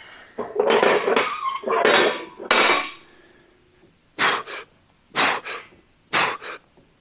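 Metal weight plates clanking and scraping for a couple of seconds, one left ringing faintly. Then a person's sharp, forceful breaths, about one a second.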